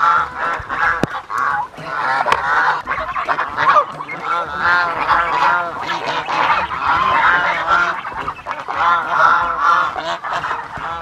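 A flock of white domestic geese honking continuously at feeding time, many calls overlapping as they crowd around the feed tub.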